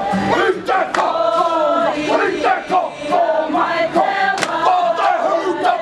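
A group performing a Māori haka: many voices chanting and shouting in unison in short rhythmic phrases.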